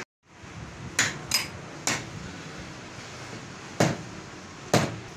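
Five sharp metal-on-metal knocks at uneven intervals, three lighter ones in the first two seconds and two heavier, duller ones near the end, like hammer strikes or heavy steel parts knocking together.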